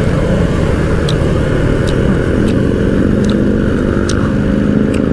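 Motorcycle engine running steadily under way, its pitch edging up a little midway, over heavy wind rush on the microphone.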